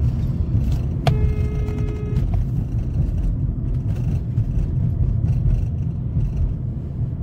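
Steady road and tyre rumble inside a car cabin as the car coasts fast in neutral. About a second in, a car horn sounds once for about a second.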